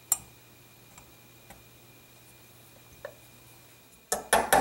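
Brass-faced hammer tapping the firing pin retaining pin home in a pistol slide resting on a wooden block. One sharp click at the start and a few faint ticks, then three quick, loud taps near the end.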